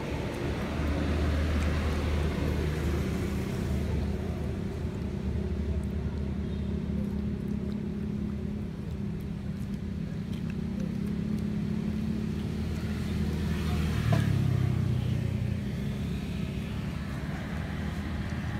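A motor engine running steadily as a low hum, its tone changing about 14 seconds in.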